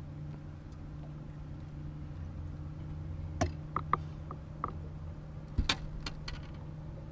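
A few sharp clicks and knocks from fishing tackle being handled in the boat, bunched in the middle with some brief small ticks among them, over a steady low hum.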